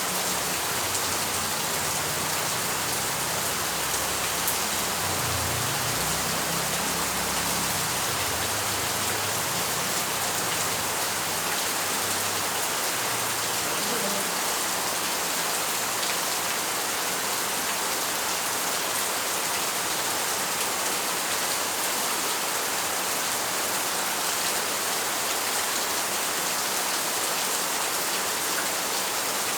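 Steady rain falling, a dense, even hiss of drops hitting surfaces.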